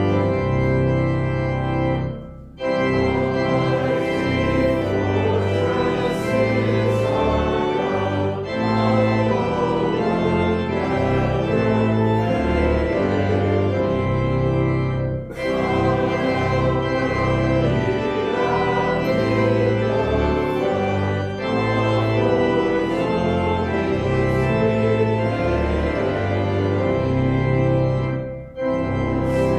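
Church organ playing the postlude: sustained chords over a moving bass line, with brief pauses between phrases about two seconds in, at about fifteen seconds, and near the end.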